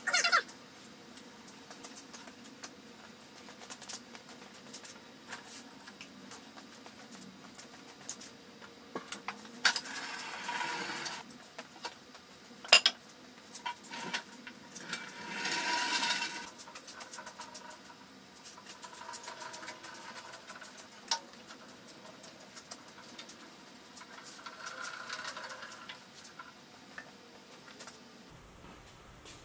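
Intermittent metallic clanks, clinks and rattling as heavy machine parts and tools are handled and moved about the shop. The clatter comes in several louder stretches, with a sharp clank about 13 seconds in.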